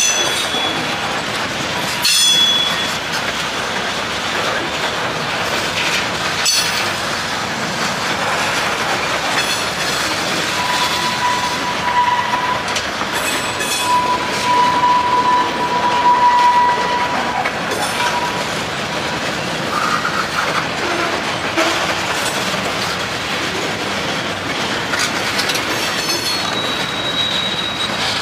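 Open gravel hopper cars of a long freight train rolling past with a steady rumble, wheels clacking now and then over rail joints. A thin wavering wheel squeal rises in the middle and fades again.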